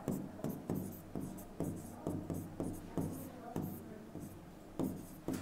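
Pen stylus scratching and tapping on the glass of an interactive display board while writing: faint short strokes, about two a second.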